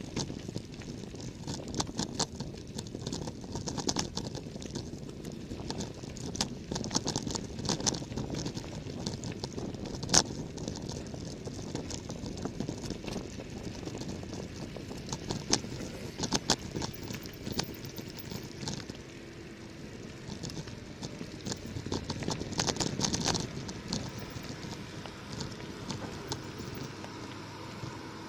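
Bicycle tyres crunching over a loose gravel road, with a rattle of frequent sharp clicks and knocks from stones and the bike. One especially sharp knock comes about ten seconds in.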